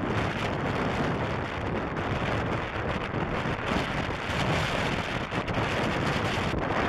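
Wind buffeting the microphone in a steady rush, mixed with the jet-engine noise of a Boeing 757 landing, swelling slightly around the middle as it touches down.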